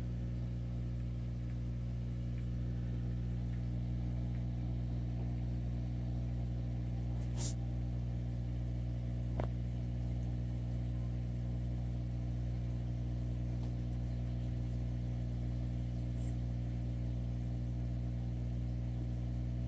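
Steady electric hum of aquarium equipment, a low buzz with a stack of even overtones that holds constant throughout. Two faint clicks come about seven and a half seconds in and again about two seconds later.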